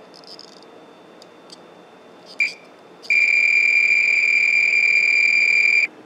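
Multimeter continuity beeper: a brief chirp about two and a half seconds in, then a steady high beep held for nearly three seconds as the probe touches the tip of a 3.5 mm headphone plug. The beep means the tip is connected through to the clipped wire, the left channel. A few faint clicks of the probes come before it.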